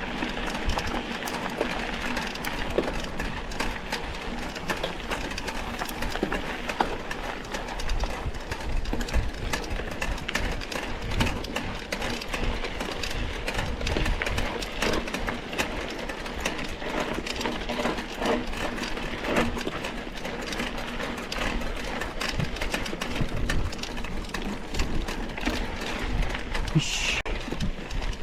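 Mountain bike rolling over a rough dirt trail: a continuous rattling and clattering of the bike over bumps, with many quick knocks and a low, uneven rumble.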